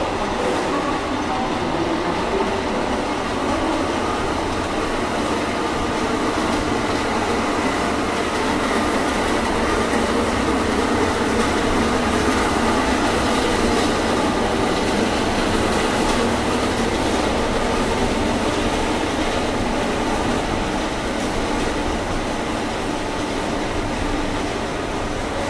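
Passenger train departing, its coaches rolling past at close range with a steady, loud noise of steel wheels running on the rails.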